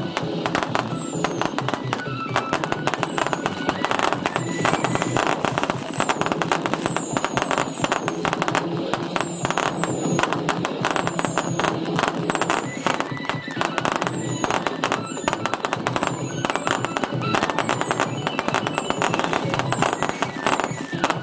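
Fireworks going off in a dense crackling barrage, with many short falling whistles, over music.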